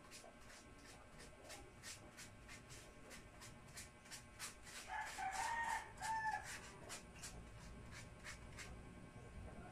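Faint, regular scrubbing of a paintbrush on a painted table stem, about three strokes a second. About five seconds in, a bird gives one pitched call lasting about a second and a half, with a break in it, the loudest sound here.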